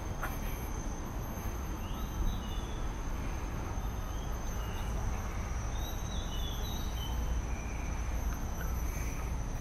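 Outdoor ambience: a steady high-pitched insect drone, with a few short bird chirps scattered through it, over a constant low rumble.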